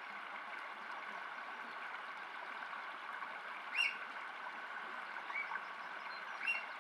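Eurasian otter giving three short high squeaks, the loudest about four seconds in, the others near the end, over the steady rush of running water.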